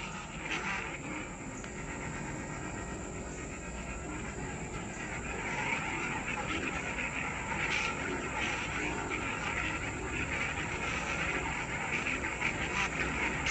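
Lightsaber hilt's Legacy Veteran soundboard playing its hum and swing sounds as the light-blue blade is swung, swelling a few times, over steady insect chirping.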